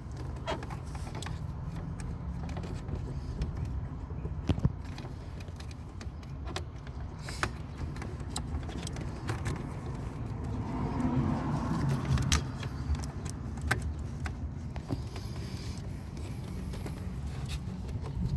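Small clicks and rattles of plastic wiring connectors being handled and plugged into a car door's wiring harness, with a louder patch of rustling and handling partway through, over a steady low hum.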